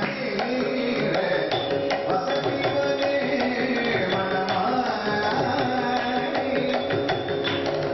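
Carnatic classical singing by male voices, with a hand drum beating a steady run of strokes underneath.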